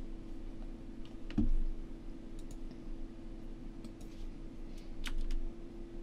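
Scattered computer keyboard and mouse clicks while text is being edited, over a steady low hum. A soft thump about one and a half seconds in is the loudest sound.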